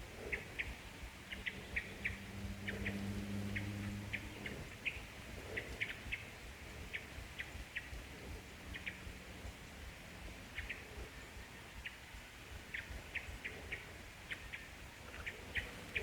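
Small birds chirping: short, high chirps in quick twos and threes, repeating at irregular intervals. A faint low hum comes in for a couple of seconds a few seconds in.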